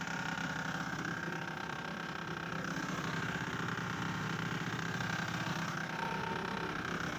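A boat engine idling steadily, a constant low drone.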